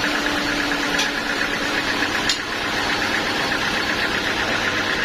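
A sawmill's engine running steadily with a fast, even pulsing. There is a faint click about a second in and a sharper click a little past two seconds.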